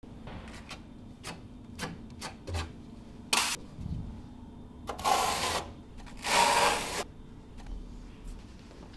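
Steel trowel scraping and spreading grey mortar across a board surface: a run of short scrapes and clicks, with three longer, louder scrapes, the loudest about two-thirds of the way in.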